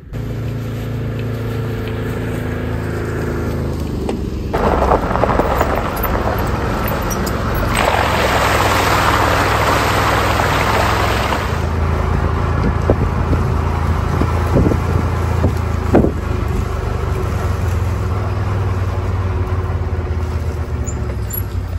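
A motor vehicle driving, its engine a steady low hum. A louder rushing noise builds about four seconds in and is strongest from about eight to twelve seconds, and there are a few sharp knocks a little later.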